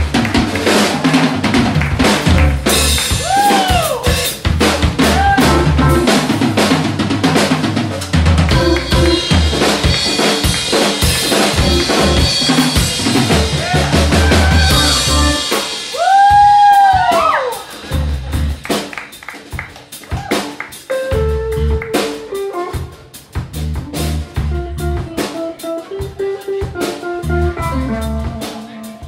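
Live rock band playing an instrumental passage: drum kit with snare and rimshots, electric bass, keyboard and electric guitar, with several long bent notes that rise and fall. About seventeen seconds in, the band drops to a quieter, sparser part.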